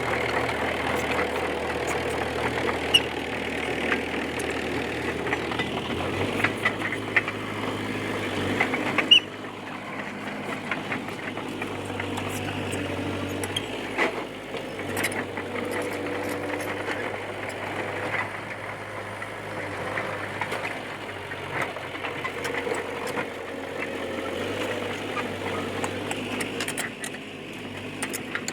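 D20P bulldozer's diesel engine running, its note shifting several times as it works, with scattered metallic clanks and clicks from the machine and its tracks; one sharp knock about nine seconds in is the loudest.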